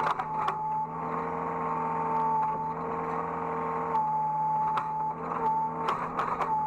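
Hydraulic excavator running under work, heard from the operator's cab: a steady engine hum with a high steady tone that shifts slightly a few times. Sharp clanks and knocks come near the start, and several more come close together near the end.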